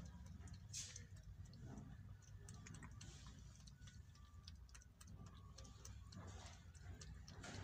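Faint, irregular small clicks and smacks of a cat lapping milk and chewing bread from a steel bowl.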